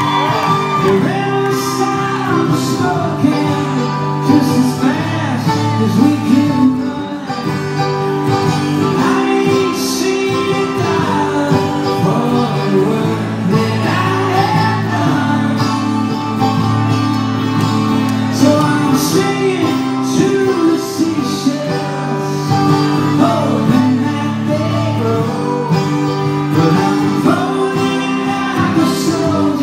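Live acoustic song: a man singing over a strummed acoustic guitar, with a second, smaller plucked string instrument playing along.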